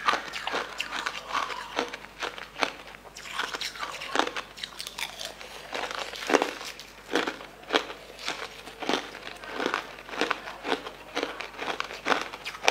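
Crushed coloured ice crunched between the teeth close to the microphone: a quick, irregular run of sharp crunches, several a second, the loudest about six seconds in. A metal spoon scooping through the ice in the tray is mixed in.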